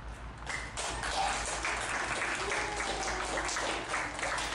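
Audience applauding, many hands clapping at once, starting about half a second in, with a few faint voices over the clapping.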